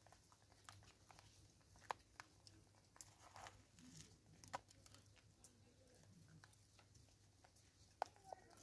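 Faint scattered clicks and taps from a vervet monkey feeding from a plastic bottle of seed, its hands knocking the bottle and the seed as it eats; two sharp clicks stand out, about two seconds in and near the end.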